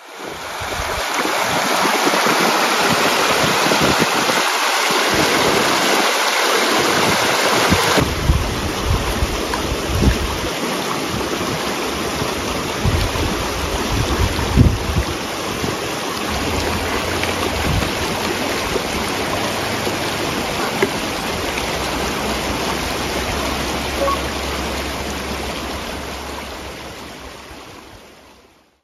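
Fast-flowing river water rushing steadily past a concrete bank, fading out near the end.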